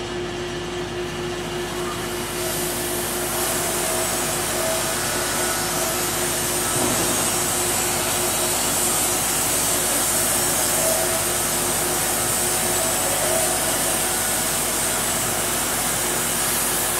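Steady whir of sawmill machinery running, a constant hum under a wide hiss that grows stronger about two seconds in.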